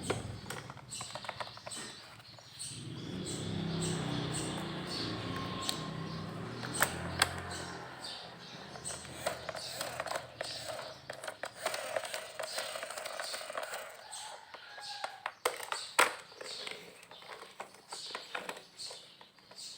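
Small plastic toy vehicles being handled, with irregular clicks, taps and clatter, and an unidentified low hum and some brief pitched sounds in between.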